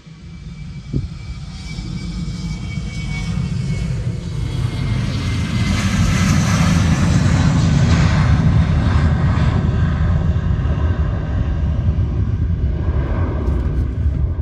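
Boeing 717's twin rear-mounted Rolls-Royce BR715 turbofan engines spooling up for takeoff. The steady roar grows louder over the first several seconds and then holds at full takeoff thrust.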